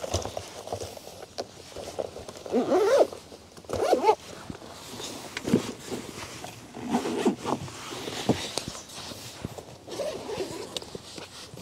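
Fishing gear being packed away by hand: bags rustling and zippers being pulled, with scattered light knocks and clicks and a few short louder rasps.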